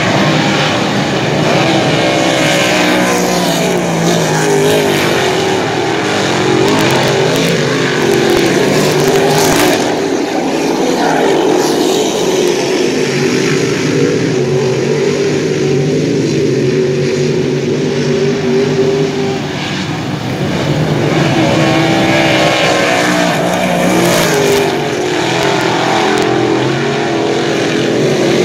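Engines of several dirt-track race cars running around the oval, overlapping, their pitch rising and falling as they accelerate and pass, with a brief lull about two-thirds of the way through.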